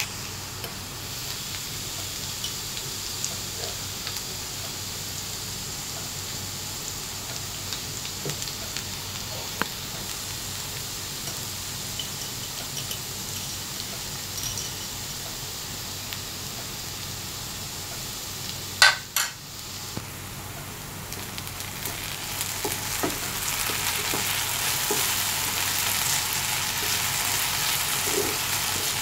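Diced potatoes and onions sizzling in oil in a frying pan, stirred and scraped now and then with a wooden spatula. There is a sharp knock about two-thirds of the way through, and the sizzling grows louder near the end.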